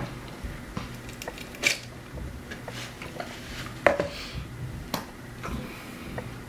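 Takeout food and its packaging handled at a table while eating: scattered soft rustles and clicks, with a sharper click a little under four seconds in, over a faint steady hum.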